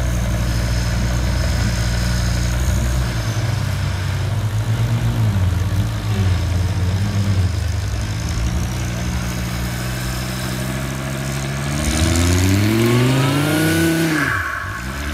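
Turbocharged Volvo engine of an off-road buggy running at low revs with some throttle changes, then revving up in a long rising pull about twelve seconds in and dropping back sharply near the end.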